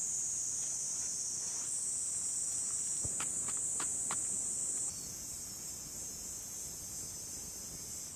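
Chorus of insects, crickets or the like, making a steady high-pitched trill. A few short clicks come about three to four seconds in.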